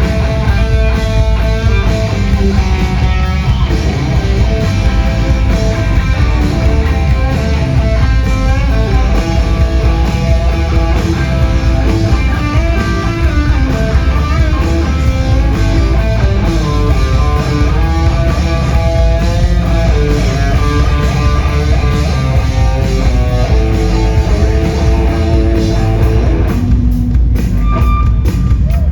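Live punk rock band playing an instrumental passage, loud electric guitar lines over bass and drum kit, with no singing.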